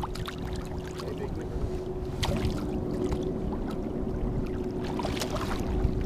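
Shallow water sloshing and splashing around a landed striped bass held at the surface by hand, with a couple of sharper splashes about two and five seconds in. A faint steady hum runs underneath.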